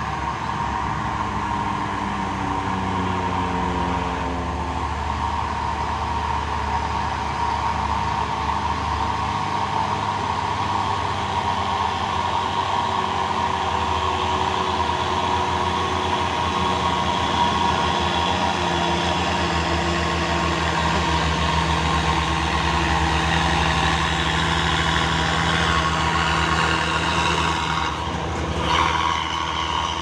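Heavy diesel trucks passing close by, their engines running steadily. Early on the engine note falls in pitch, and there is a short burst of noise near the end.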